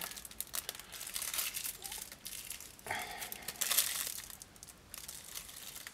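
Faint handling sounds: light clicks, scraping and rustling as a metal-cased candle is pushed into the drilled hole of a turned wooden candleholder, with plastic wrapping crinkling. The rustle is loudest about three to four seconds in.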